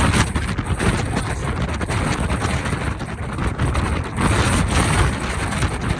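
Strong gusty wind blowing across the microphone: a loud, low rumble of buffeting with a rushing hiss, rising and falling with the gusts.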